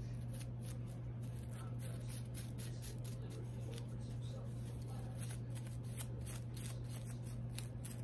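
Hands rustling and rubbing the fabric outfit of a small plastic fashion doll as it is turned and handled, in a run of irregular soft clicks and rustles. A steady low hum sits underneath.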